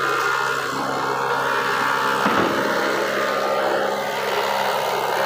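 A machine motor running steadily with a constant hum, and a single brief knock about two seconds in.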